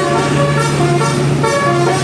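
A bus's 'telolet' air horn, a set of horn trumpets playing a melody of quick stepped notes, with a steady low drone underneath.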